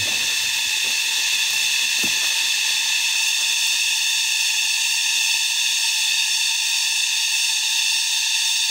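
Loud, steady chorus of cicadas: a dense, unbroken high-pitched buzz.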